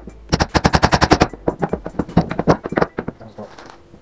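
Claw hammer tapping a wooden dowel into a frame joint: quick, sharp blows, about ten a second, in two runs, then a few lighter knocks.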